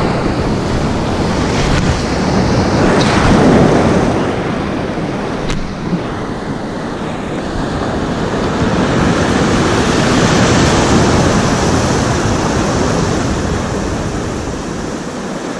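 Choppy sea surf washing in and breaking around the water's edge. It swells louder about three seconds in and again around ten seconds, and eases in between.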